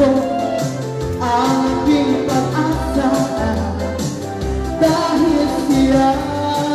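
A woman singing a Tagalog gospel song over instrumental accompaniment, with held bass notes changing every second or so beneath the melody.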